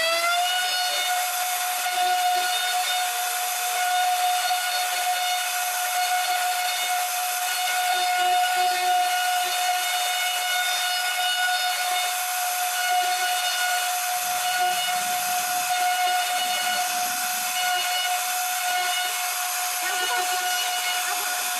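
CNC router spindle running at a steady high-pitched whine with a constant hiss over it. It comes up to speed in the first half-second, then holds one pitch.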